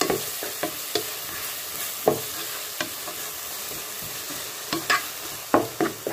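Chopped onion and tomato frying in oil in a kadai with a steady sizzle, while a wooden spatula stirs and scrapes it, giving irregular short scrapes and knocks against the pan, a cluster of them near the end.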